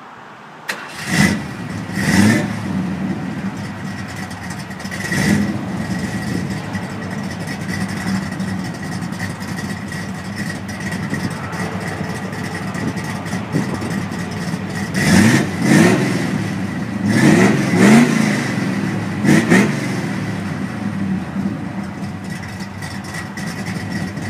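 Classic car engine starting about a second in, then idling with a number of short throttle revs, several of them close together between about 15 and 20 seconds in.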